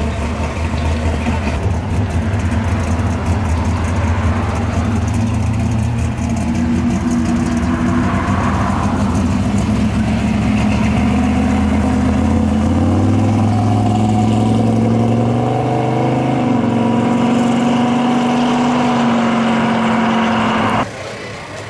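Hot-rodded 1960s Chevy II Nova's engine running at low speed as it pulls out, then rising in pitch as it accelerates away about twelve seconds in, and holding a steady note before the sound cuts off abruptly near the end.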